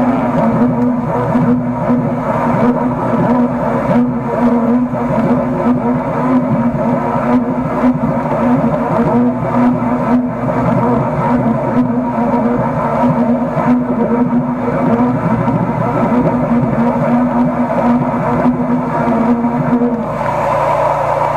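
Engine-driven high-pressure drain jetter running steadily under load as it blasts water through a blocked sewer line, with a strong steady hum; its pitch drops near the end.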